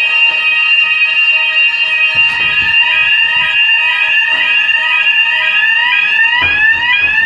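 Building fire alarm sounding loudly: steady electronic tones, joined a couple of seconds in by a rising whoop repeated about twice a second.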